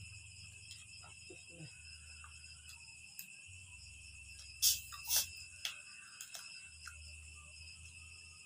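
Crickets chirring steadily at several high pitches, over a low steady hum. Small scattered clicks and taps, with two sharp clicks about half a second apart near the middle.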